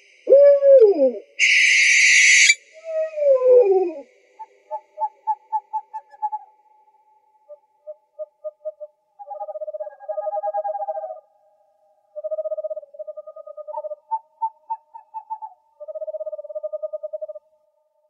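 Owl calls: a harsh hissing screech about a second and a half in, and calls that fall in pitch. These are followed by a run of short, evenly spaced notes and then repeated rapid trills with short gaps between them.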